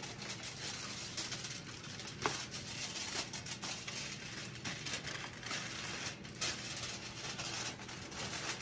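Aluminum foil rustling and crinkling as it is handled, pulled from the roll and fitted to a cookie sheet, with a few sharper scrapes and ticks.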